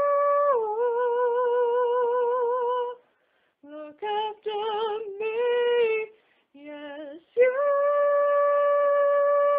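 A solo female voice singing unaccompanied, with long held notes and vibrato: a sustained "But you", a short phrase on "Look after me", then a long held "Yes you". The singing breaks off briefly twice, about three and six seconds in.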